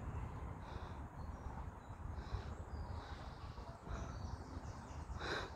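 Outdoor background: a low steady rumble with a few faint bird chirps over it, and a short burst of noise near the end.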